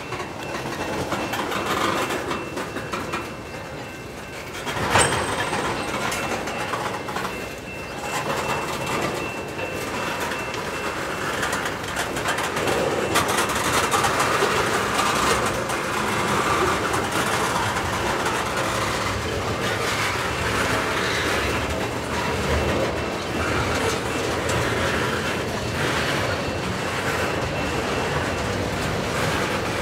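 Freight train tank cars rolling past, steel wheels clicking over the rail joints. A sharp metallic clank sounds about five seconds in, and a thin high ring runs under the rumble through roughly the first ten seconds.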